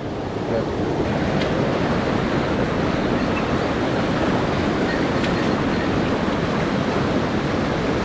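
Steady rush of a mountain stream's flowing water, the stream running a little high.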